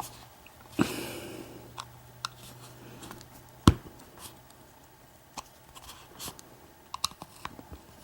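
Scattered clicks and knocks of a padlock being handled as its snap-on weatherproof protective cover is worked off. There is one sharper knock about four seconds in and a quick run of clicks near the end.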